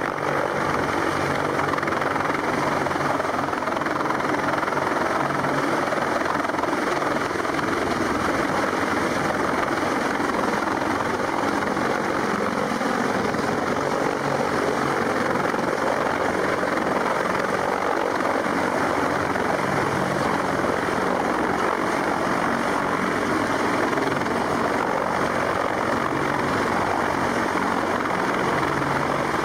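Sikorsky CH-53 heavy-lift helicopter hovering low and close by, its rotors and turbine engines making a loud, steady noise.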